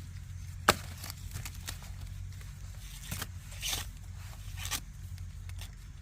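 Corn being husked by hand: irregular sharp snaps and rustling tears of dry husk, with one loud crack about two-thirds of a second in.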